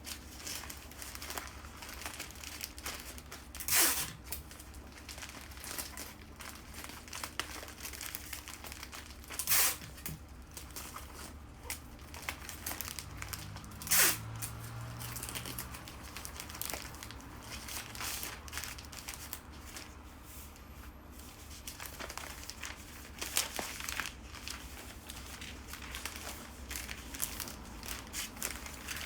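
Wrapping paper or cellophane being handled and crinkled while a bouquet base is assembled. There are three loud, short rips at about 4, 9.5 and 14 seconds in, with smaller ones later.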